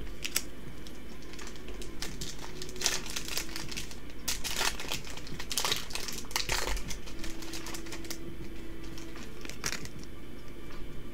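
Foil Yu-Gi-Oh booster pack wrapper being torn open and crinkled by hand, with crackling strongest in the middle few seconds.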